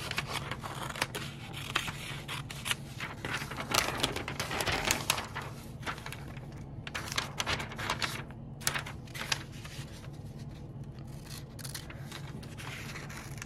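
Scissors snipping along the edge of a magazine poster in irregular cuts, with the paper rustling and crinkling as it is handled.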